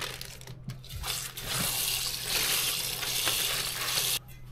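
Undulated surf clams being rinsed in a pot: water splashing and running over the shells, with the shells clinking against each other. The water sound cuts off suddenly about four seconds in.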